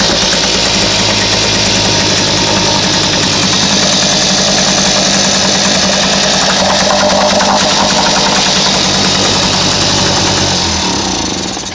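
Nissan 3.5 hp outboard motor running steadily at idle, already warm, with no choke. About eleven seconds in it slows and cuts off at the very end.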